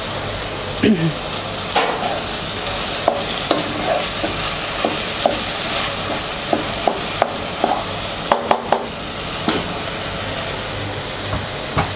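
Minced meat (keema) sizzling in a pan over high heat as it is dry-fried until no moisture is left, with a spatula repeatedly scraping and clinking against the pan as it is stirred; a quick run of clinks comes a little past the middle.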